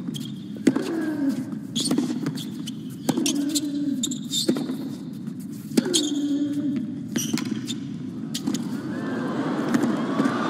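Tennis ball struck back and forth with rackets in a hard-court rally, a sharp hit about every second or so. Several hits are followed by a short grunt from a player, over a steady murmur from the crowd.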